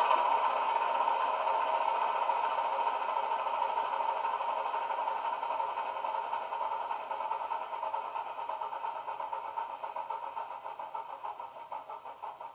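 Howes DCC sound decoder in a Heljan OO-gauge Class 26, playing a recorded Sulzer six-cylinder diesel engine through two small bass-enhanced speakers inside the body. The engine sound dies away steadily, its separate beats showing near the end as it winds down.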